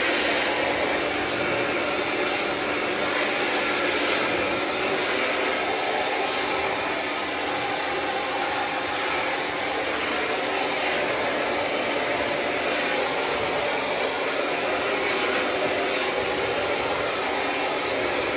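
Handheld hair dryer running steadily, blowing hot air through hair as it is brushed dry: an even rush of air with a constant motor hum beneath it.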